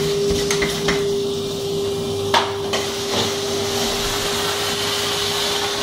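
Canister vacuum cleaner running with a steady whine as it is pushed over a bare concrete floor, with a few knocks, the loudest about two and a half seconds in.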